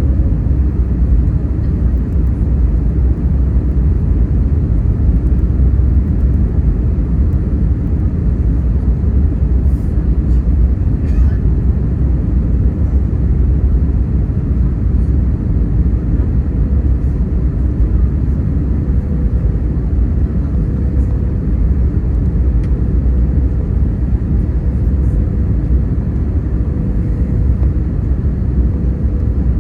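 Steady low roar of cabin noise inside an Airbus A321neo airliner in flight, engine and airflow noise, with a faint steady hum appearing about halfway through.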